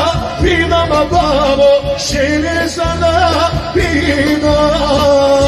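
Live folk band playing with amplification: a male singer over accordion, violin and drum kit, with an ornamented, wavering melody over a steady beat.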